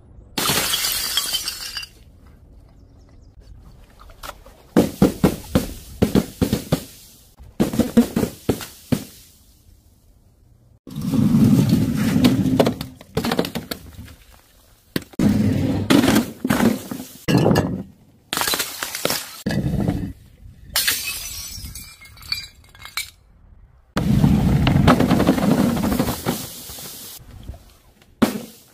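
Glass jars and other dropped objects smashing on a hard surface, in a string of separate bouts of crashing, shattering and clattering. There are about eight bouts, each a second or two long, with short pauses between them.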